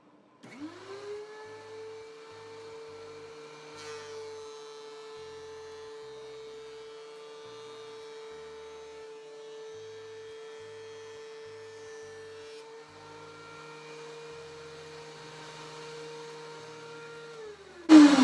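DeWalt DW735 thickness planer's motor spinning up and running with a steady whine with no board in it. Near the end the pitch drops and a sudden loud cutting noise starts: a board feeding into the new blades and loading the motor.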